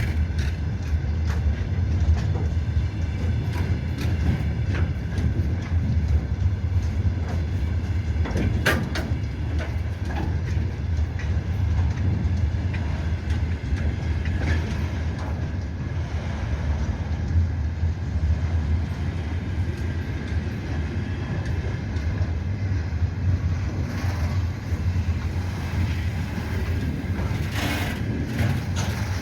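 Slow container freight train rolling past: a steady low rumble of the wagons with scattered clicks from the wheels and rail.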